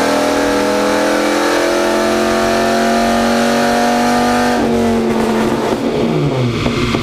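Dodge Ram SRT-10's 8.3-litre Viper V10 pulling at full throttle on a chassis dyno, revs climbing steadily under load. About four and a half seconds in, the throttle shuts and the revs fall away quickly.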